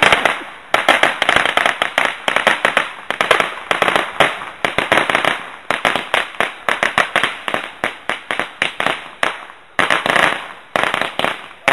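A rapid, continuous run of sharp pops and bangs, many a second, with a few short lulls.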